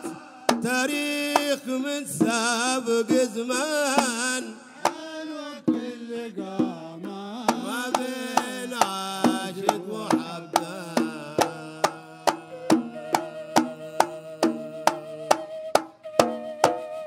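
Instrumental Hadrami folk music from a live band: a wavering melody instrument over hand drums. About halfway through, the drum strikes settle into a quick, steady beat.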